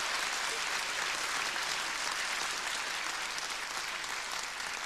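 Concert audience applauding steadily at the end of a song, easing off slightly toward the end.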